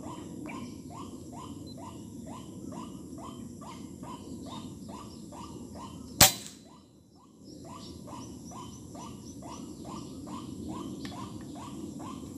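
White-breasted waterhens calling in a steady run of short repeated notes, about three a second, over the low rush of a small stream. About six seconds in, a single sharp air-rifle shot cracks out; the calls break off for about a second, then carry on.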